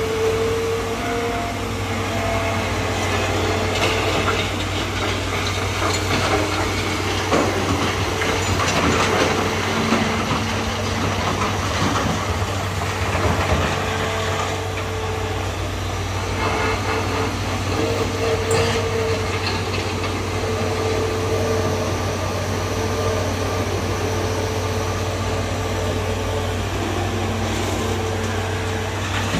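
Hitachi hydraulic excavator's diesel engine running steadily as it digs and loads sand into a dump truck, a constant low hum under a higher steady drone that comes and goes, with some scattered clatter.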